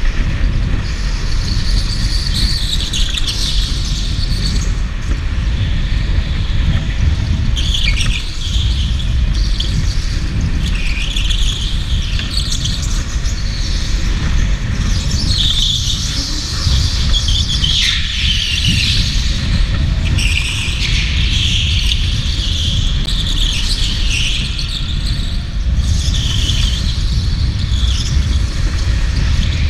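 Electric go-kart's tyres squealing again and again as it slides through corners on a smooth indoor track floor, each squeal wavering in pitch. Under it runs a steady low rumble from the moving kart.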